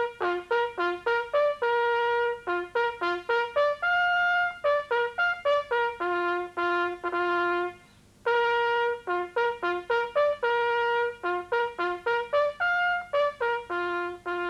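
A solo bugle call on a brass horn, played as quick runs of notes on only a few natural-horn pitches. It comes in two phrases with a short break about halfway, and the second phrase repeats the first. It is sounded as a military salute while veterans stand at attention.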